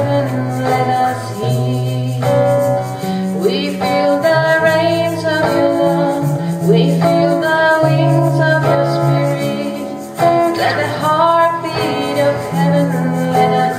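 A woman singing a slow devotional song with guitar accompaniment and sustained low notes underneath.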